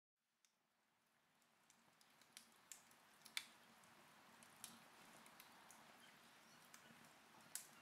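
Wood fire crackling in a fireplace: faint, scattered sharp pops and snaps over a soft hiss. It fades in from silence about half a second in and grows slowly louder.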